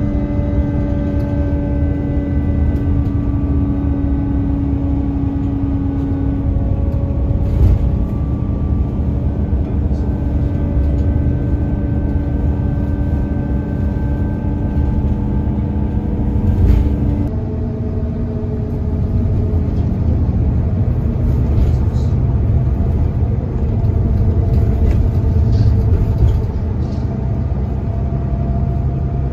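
Intercity coach at highway speed, heard from inside the cabin: a steady low rumble of engine and tyres with a steady droning tone over it. The drone shifts in pitch abruptly a little over halfway through.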